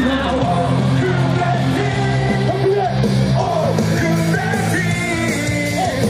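Loud cheer music with a heavy, steady bass, with a crowd of baseball fans singing and yelling along.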